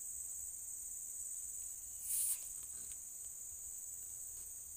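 Insects calling steadily in the surrounding vegetation, with a constant high-pitched chirring. About two seconds in there is a brief, louder rustle.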